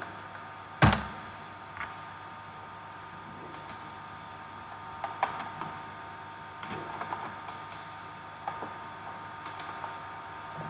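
Scattered clicks of a computer keyboard and mouse, with one sharp key strike about a second in and then light clicks, often in pairs, over a steady background hum.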